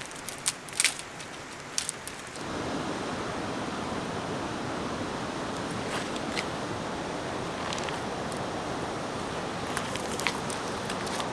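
Steady rushing of river water, setting in suddenly about two seconds in, after a few sharp clicks and splashy ticks.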